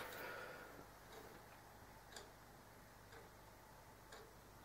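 Clock ticking faintly, about once a second, in a near-silent room.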